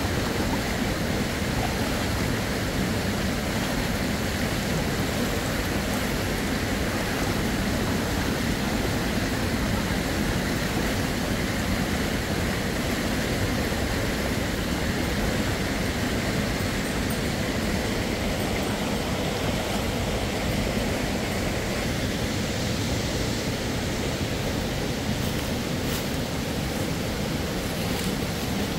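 Steady rush of a fast, shallow mountain stream running over rocks.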